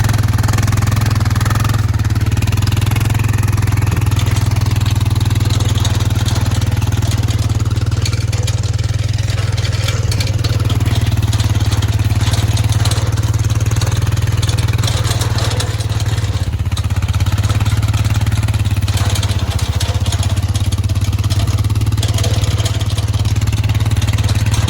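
Four-wheeler (ATV) engine running at a steady pace while being ridden, a continuous low engine hum with noise over it.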